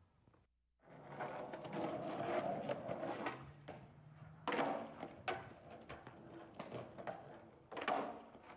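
Skateboard on concrete: wheels rolling with repeated sharp clacks of the board slapping down, the loudest about four and a half seconds in and another near eight seconds.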